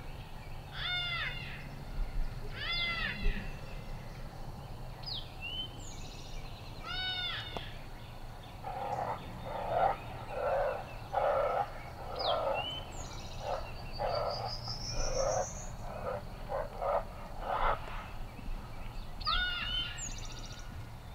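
Recorded coyote vocalizations played through a FoxPro X2S electronic predator call. Short calls rise and fall in pitch, a few howl notes slide steeply down and one slides up, and a run of about a dozen short, noisier calls comes in the middle.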